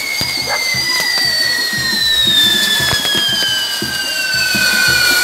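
Firework castillo tower burning: two long whistles slide slowly down in pitch over continuous crackling and popping.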